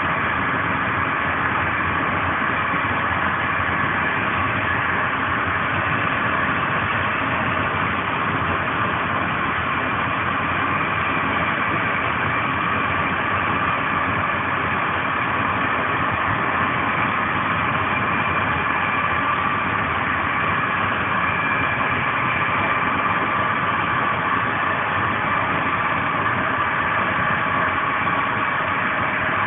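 Steady running noise heard on board an Intercidades passenger train's Corail carriage travelling at speed, with no rail-joint clicks and a few faint steady tones above it.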